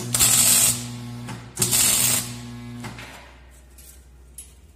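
Electric arc welder tack-welding steel tube: two short bursts of arc crackle about a second and a half apart, each over a low mains hum from the welder, which fades out about three seconds in.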